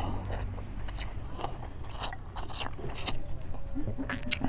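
A person eating instant noodles from a bowl held to the mouth, slurping and chewing: a run of short slurps about every half second.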